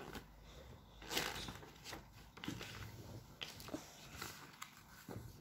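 Faint rustling of a picture book's paper pages being handled and turned, in a few short bursts.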